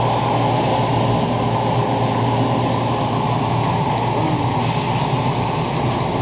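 Sawmill machinery running, a steady drone with a constant low hum and no distinct strokes or cuts.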